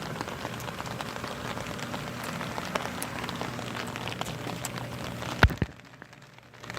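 Rain falling on hard surfaces, a steady hiss full of small drop ticks. A single sharp knock comes about five and a half seconds in, after which the sound briefly drops away.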